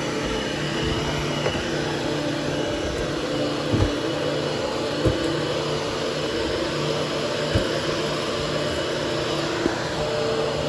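Hoover HushTone 13-inch upright vacuum cleaner running steadily over carpet, a constant motor hum and airflow rush. A few brief knocks come through as the vacuum is worked around the room.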